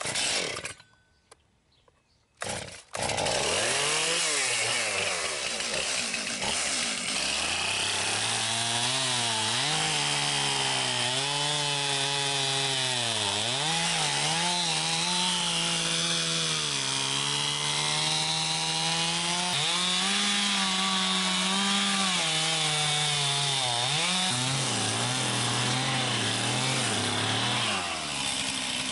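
Gas chainsaw starting up about three seconds in, then cutting into a big black locust log for over twenty seconds, its engine pitch sagging and recovering again and again as the chain bites into the wood. It stops shortly before the end.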